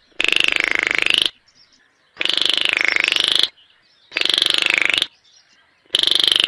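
Baillon's crake calling: four rapid rattling phrases, each about a second long and dipping in pitch in the middle, with pauses of about a second between them.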